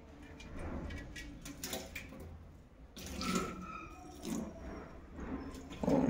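Water splashing and trickling, with a few faint clicks.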